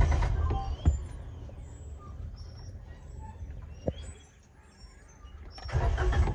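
Suzuki Alto's starter cranking the engine, which does not catch; the cranking stops just after the start. A quiet pause follows with faint bird chirps, a click and a soft thump, then another cranking attempt begins near the end.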